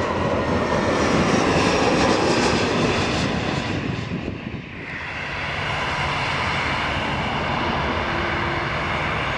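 Jet airliner engines running, with a brief drop about four and a half seconds in, then steady engine noise from an airliner taxiing.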